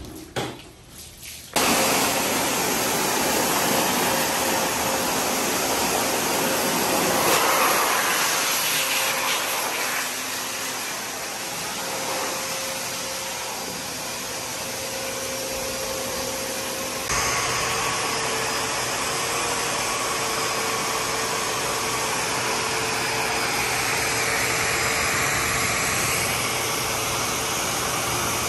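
High-velocity pet grooming dryer blowing air, a loud steady rush with a faint whine, drying a wet dog's coat. It starts suddenly about two seconds in and shifts in tone partway through.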